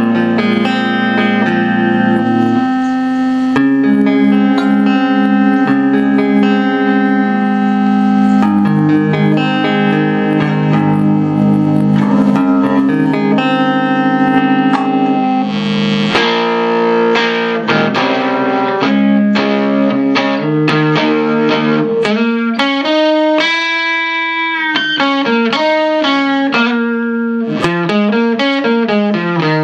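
Electric guitar played through a vintage Webster 166 amplifier: ringing chords for the first half, then single-note lines with notes sliding and bending in pitch.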